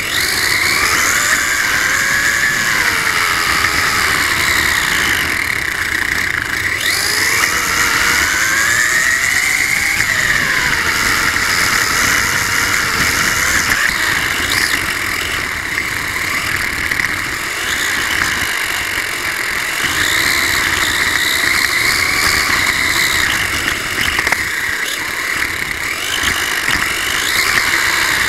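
Brushless electric motor of a 1/24-scale Losi RC car whining, heard from on board the car. Its pitch rises and falls repeatedly as the car speeds up and slows, over a steady rush of small tyres on rough pavement.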